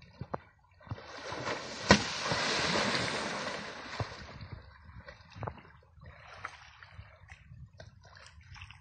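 Asian elephant wading in a river, water splashing and sloshing around its body, with a longer rush of splashing from about one to four seconds in, loudest about two seconds in, then smaller splashes.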